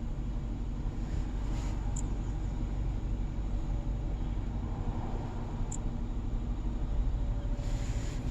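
Mercedes-Benz S500 engine idling: a steady, even low rumble, with two faint ticks.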